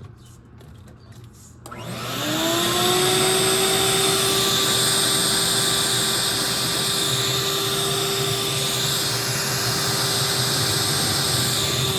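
Wet/dry shop vacuum, filter removed, switched on about two seconds in. Its motor spins up with a rising whine, then runs steadily, sucking up water through the hose.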